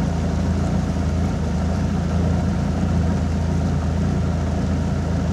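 Boat's outboard motor running steadily under way: a constant low drone that does not change pitch.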